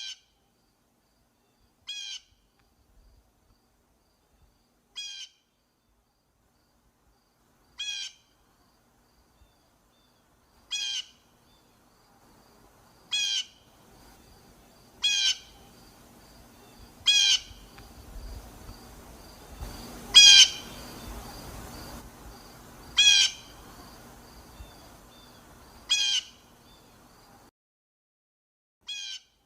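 Blue jay calling: a short call repeated every two to three seconds, about a dozen in all, the loudest a little past the middle. From about halfway a faint background noise with a low rumble sits under the calls, then stops near the end.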